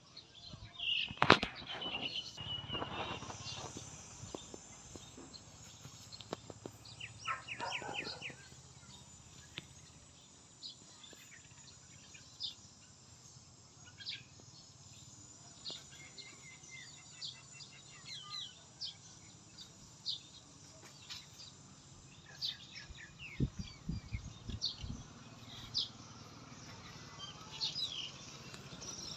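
Outdoor ambience of small birds chirping again and again over a steady background hiss. A single sharp knock sounds about a second in, and a few low thuds come near the end.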